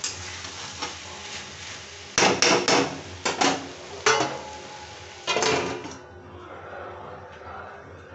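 Okra frying in a kadai with a steady sizzle while a metal spatula scrapes and knocks against the pan in several ringing clanks. Near the middle a steel lid clatters on, and after that the sizzle is muffled.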